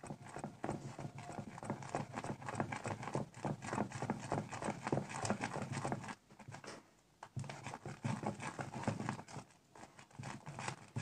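Foamy dish-soap slime stirred with a spatula in a glass bowl: rapid wet clicks and squelches as the mixture whips up fluffy. The stirring pauses briefly a little past the middle, then resumes.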